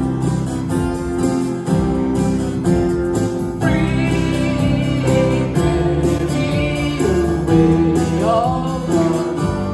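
Live worship band music: a man singing with guitar, backed by keyboard and electric bass.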